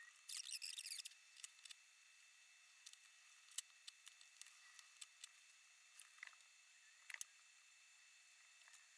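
Faint handling noise of small 3D-printed plastic parts and screwdrivers on a wooden desk: a short rustle or scrape near the start, then scattered light clicks and taps as parts and tools are picked up and set down.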